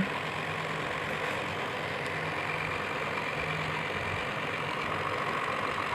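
Electric table fan running: a steady motor hum with an even whir of air. The earlier rattle is mostly gone now that its loose parts have been tightened.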